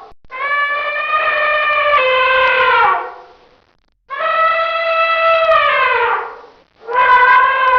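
Elephant trumpeting: long calls that each hold a steady pitch and then drop at the end, two full calls followed by a third starting near the end.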